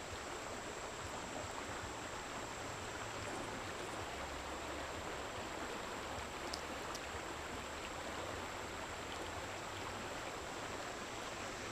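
Steady rush of water pouring from a dam, an even hiss with no breaks.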